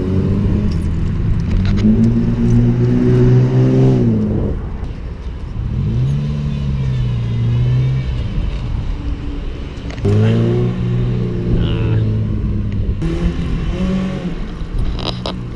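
Car engine with its muffler spaced off by an exhaust spacer, in effect an exhaust leak, revving hard past. The exhaust note rises in pulls, breaks off about four seconds in, and climbs again from about ten seconds in.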